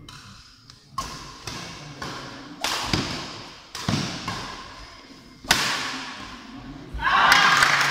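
Badminton rally: sharp cracks of rackets striking the shuttlecock, echoing in the hall, about every half second to a second. About seven seconds in, spectators break into loud cheering and shouting as the rally ends.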